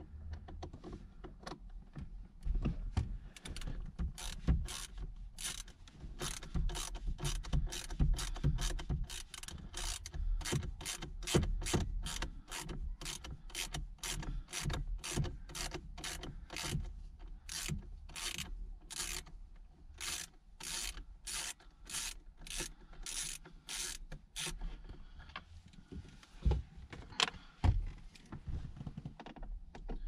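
Ratchet handle clicking in quick repeated back-and-forth strokes, about two a second, as it works the T30 security Torx bolts that hold the steering wheel's airbag centre. The clicking stops a few seconds before the end.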